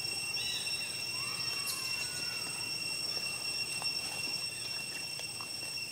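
Insects droning in a steady high-pitched chorus, with a couple of faint gliding calls about a second in.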